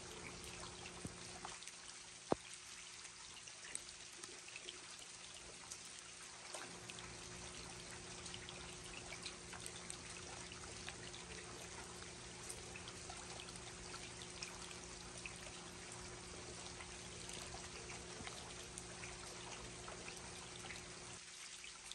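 Steady rain: a hiss of falling drops with water trickling and running, and one sharp tick about two seconds in. A faint low hum lies underneath.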